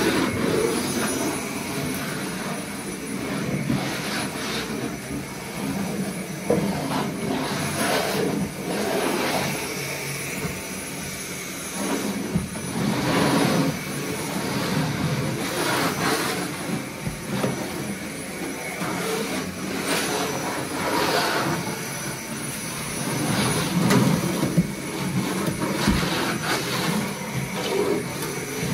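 Vacuum cleaner running steadily with a high motor whine, its rushing noise swelling and easing as the nozzle is pushed back and forth over the floor.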